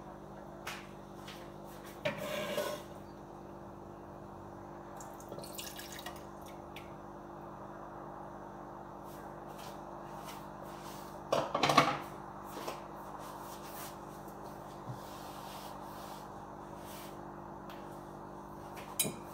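Kitchen handling noises: scattered clicks, knocks and rustles of dishes and utensils on a counter over a steady hum, with the loudest clatter about twelve seconds in.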